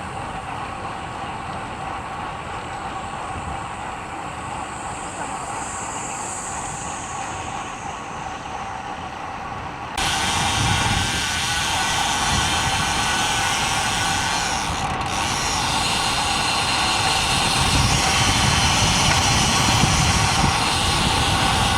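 Wind rushing over the microphone and tyre noise from a road bicycle on the move. The noise jumps abruptly louder about ten seconds in.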